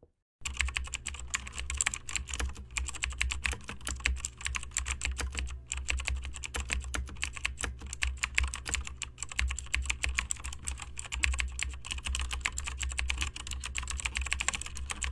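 Fast, irregular clicking of typing on keys, over a low steady hum.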